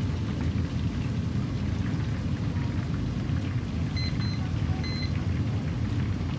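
Hot oil in a commercial deep fryer sizzling and crackling steadily. Short electronic beeps sound about four and five seconds in.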